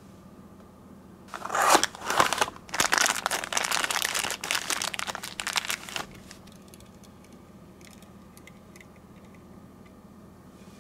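Packaging of a die-cast Tomica toy car crinkling, crunching and tearing as the car is unboxed, dense and loud for about four and a half seconds before it stops abruptly. A few faint light clicks follow.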